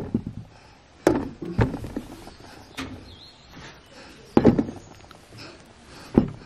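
Mandazi dough being kneaded by hand on a wooden board: dull thumps as the dough is pushed and dropped onto the wood, about five of them, the loudest about four and a half seconds in.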